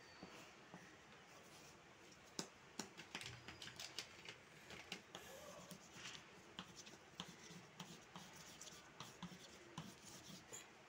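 Faint, irregular scratching and tapping of a drawing or colouring tool working on paper, in quick strokes with short pauses.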